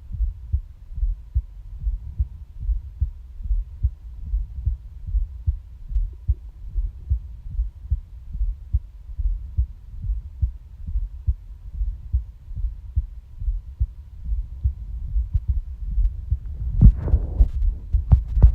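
A human heartbeat heard up close: steady, regular low thumps. Near the end a louder burst of noise rises over the beats.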